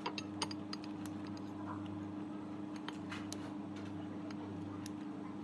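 Café counter work sounds: a steady equipment hum with scattered light clicks and clinks, several near the start and a few more later.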